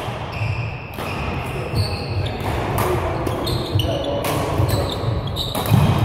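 Badminton rally in a large sports hall: sharp racket strikes on the shuttlecock several times, court shoes squeaking on the floor and footsteps thudding, all echoing in the hall, with voices in the background.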